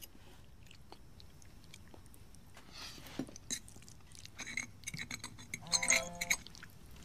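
A person eating spaghetti: slurping and chewing noodles, with small clicks of a fork against a plate. Near the end there is a louder cluster of clicks and a brief pitched sound.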